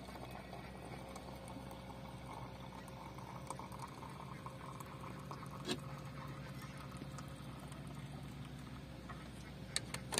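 Water poured in a steady stream from a kettle into a brass teapot, filling it. Near the end come two sharp metallic clicks as the teapot's lid is set on.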